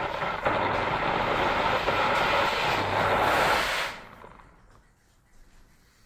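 New Bright Mercedes-Benz SLR McLaren radio-control toy car's battery-powered drive motor and gearbox running as the car drives over a wooden floor, then cutting out and going quiet about four seconds in. The running carries the drumming noise that the owner thinks is in the transmission rather than the body rubbing.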